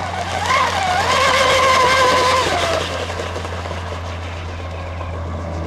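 Delta Force Vortex 34 radio-controlled fast electric speedboat running at speed: a high motor whine that climbs about half a second in, holds steady, then drops and fades just before the three-second mark.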